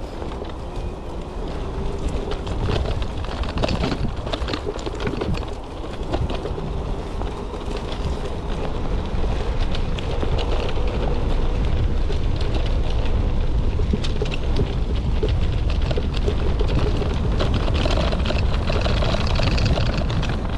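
Off-road ride on an electric bike with a Bafang BBS02 750W mid-drive motor: steady wind rumble on the action-camera microphone, with many short knocks and rattles as the bike runs over rough ground. A faint whine climbs slowly in pitch over the first ten seconds or so.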